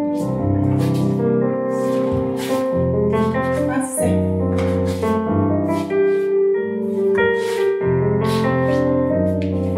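Ballet class piano music, chords and a melody played at a steady, even pace.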